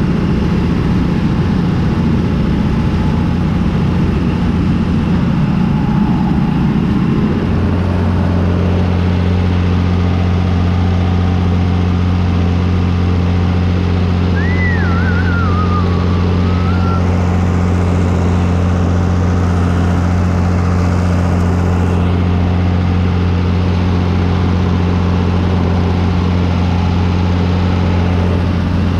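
John Deere 3350 tractor's six-cylinder diesel running steadily under load while it pulls and drives a Zmaj 222 corn picker through standing maize. The engine hum settles into a steadier, deeper note about seven seconds in, and a short high warbling whistle comes about halfway through.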